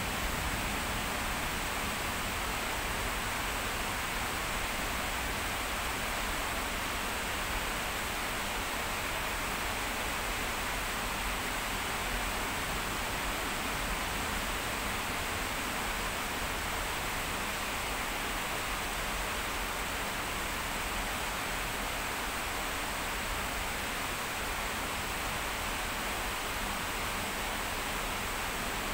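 Heavy rain falling: a steady, even hiss with no breaks.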